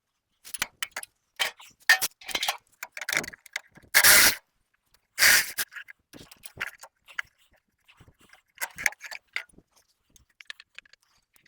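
Metal clinks, knocks and rattles of the small steel toolbox being unbolted and worked off a Ferguson tractor, irregular sharp strikes with two longer scrapes about four and five seconds in.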